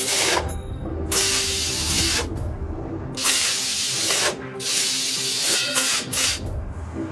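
Repeated bursts of spraying hiss, each about a second long, four times, over faint steady tones.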